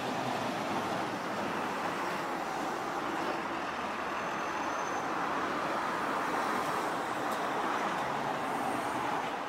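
City road traffic: cars and a truck driving past, a steady wash of tyre and engine noise.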